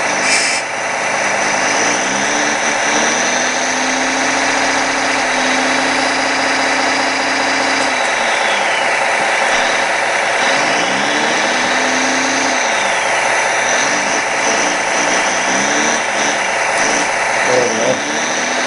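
Radio-controlled 1:16 scale hydraulic excavator running: the model's sound module plays a diesel engine drone that revs up, holds and settles back about three times as the clam bucket is worked, over a steady mechanical hum.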